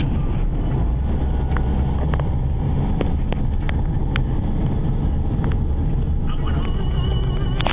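Steady low engine and road rumble heard from inside a car's cabin while driving, with a few light irregular clicks.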